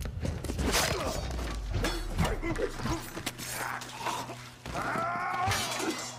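Hand-to-hand fight with a bladed weapon: a run of sharp clashing and thudding blows with grunts, then a long cry near the end.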